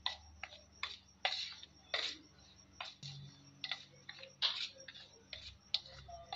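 Metal spoon stirring dry semolina and flour in a stainless steel bowl: irregular short scrapes and clicks of the spoon against the steel, about two a second.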